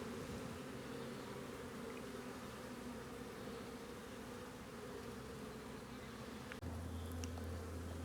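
Honeybees humming steadily over an opened hive, a colony of package bees in their third week. About six and a half seconds in, the sound breaks off for an instant and resumes with a deeper, stronger low hum added.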